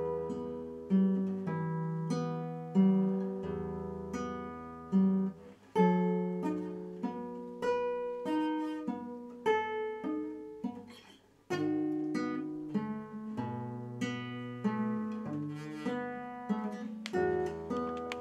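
Nylon-string classical guitar played fingerstyle: a solo piece of plucked melody notes over ringing bass notes. The playing breaks off briefly about two-thirds of the way through, then resumes.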